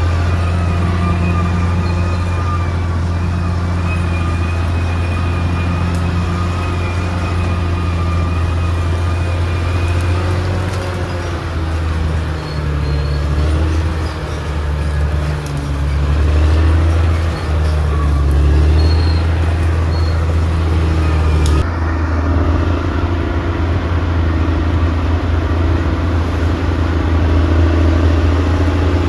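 Crawler bulldozer's diesel engine running under load, a steady low drone that wavers and shifts in pitch around the middle as the load changes. The sound changes abruptly about three-quarters of the way through.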